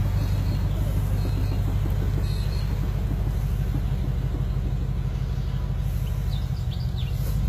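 Ford XH Falcon ute's V8 engine running steadily at low revs, an even low rumble that holds the same pitch throughout.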